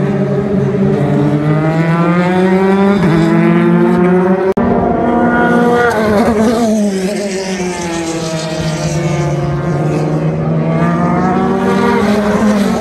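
JAF F4 formula race cars going past at racing speed, their engine notes sweeping up and down in pitch as they approach and pass. The sound breaks off briefly about four and a half seconds in, then another pass follows.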